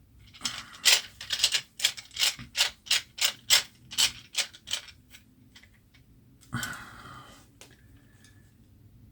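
Ratcheting driver turning fasteners into the rebuilt Benjamin 3600 airgun. It gives a regular run of rasping ratchet clicks, about three a second for some four seconds, then one longer rasp a little later.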